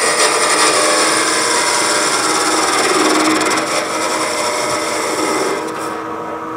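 Wood turning on a lathe, a tool cutting a spinning piece of wood with a steady scraping hiss over the lathe's hum. The pitch of the cut shifts now and then, and it eases off slightly near the end.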